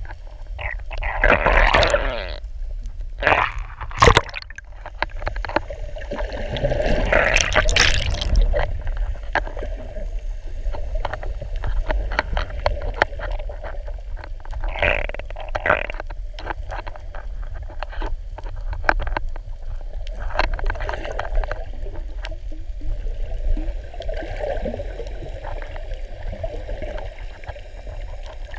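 Muffled underwater sound heard through an action camera's waterproof housing: a steady low rumble of water, with several louder noisy bursts and a sharp knock about four seconds in, and many short clicks throughout.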